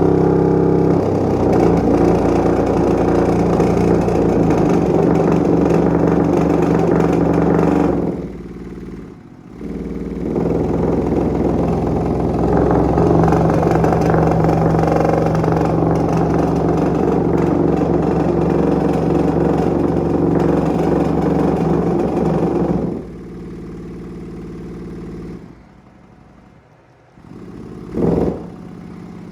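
Open-air subwoofer driven hard by a low test tone from a frequency generator, its cone at large excursion, giving a loud, buzzy, distorted drone with strong overtones. It cuts out for a moment about 8 seconds in, comes back, and drops away near the end.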